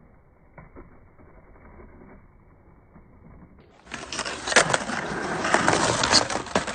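Skateboard wheels rolling on concrete with sharp clacks and knocks of the board. Faint and muffled at first, then much louder from about four seconds in.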